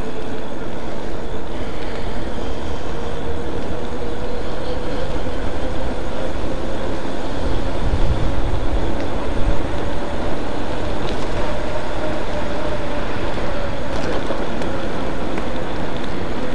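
Custom e-bike riding along a paved path, its electric motor giving a steady whine that rises slowly in pitch as the bike gathers speed and then levels off. Under it is wind and road rumble on the microphone.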